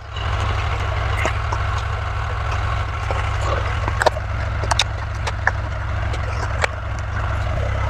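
Power saw cutting slots into the chicken coop's wall, a steady cutting noise with scattered sharp clicks, over a tractor engine idling.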